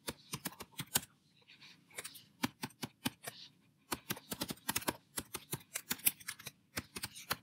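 Typing on a computer keyboard: irregular runs of key clicks, with a short pause a little past the middle.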